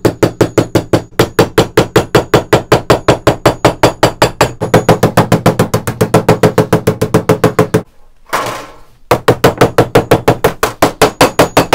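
Ball-pein hammer rapidly beating a thin copper sheet on a plywood bench, about six ringing blows a second, dimpling the flat sheet to give it a hammered texture. The hammering breaks off briefly about eight seconds in, then carries on.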